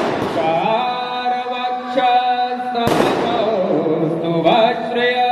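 Devotional Hindu chanting sung over music, broken by sharp firework bangs, one right at the start and another a little under three seconds in.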